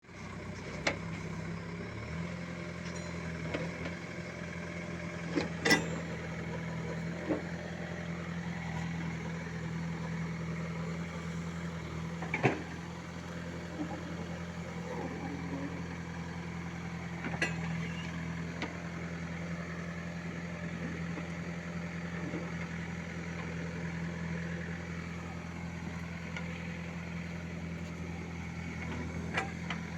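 Case 851 backhoe loader's diesel engine idling steadily, with a few short sharp knocks scattered through.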